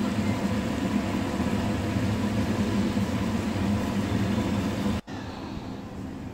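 Chicken bones and vegetables in water at a hard boil in a stainless steel pot on high heat: a steady, loud boiling noise. It cuts off abruptly about five seconds in, leaving a quieter steady hiss.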